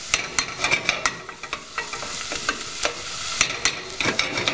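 Diced onion and green pepper sizzling in butter in a nonstick saucepan while a utensil stirs them, knocking and scraping against the pan with repeated sharp clicks.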